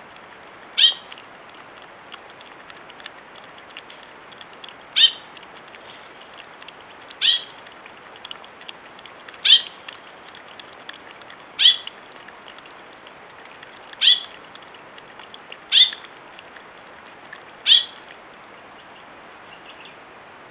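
Eight short, high-pitched animal calls, each dropping in pitch, repeated about every two seconds over a steady outdoor hiss.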